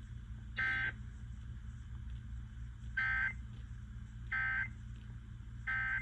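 Emergency Alert System digital data bursts: four short, shrill warbling bursts of about a third of a second each, the last three about a second apart, marking the end of the alert message. A steady low hum runs underneath.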